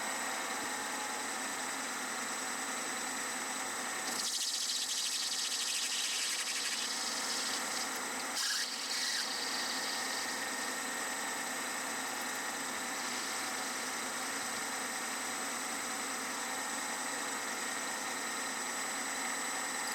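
Metal lathe running with a steady whine while turning brass bushes. About four seconds in, a louder scraping cut lasts a few seconds, and a shorter cut follows around eight seconds in.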